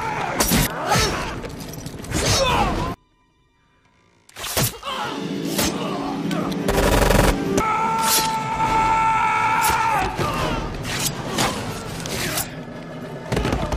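Action-film fight soundtrack: dramatic music with a string of sharp hits and thuds. About three seconds in the sound cuts out almost to silence for a second or so, then the hits and music come back, with a heavy impact about seven seconds in.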